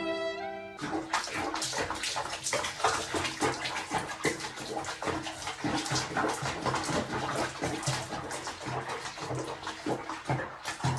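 Water splashing and sloshing in an irregular, busy patter, with music underneath. A held musical chord ends about a second in.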